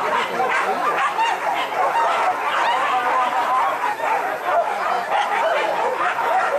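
A pack of hunting dogs yelping and barking without a break, many voices overlapping, as they give chase after a wild boar.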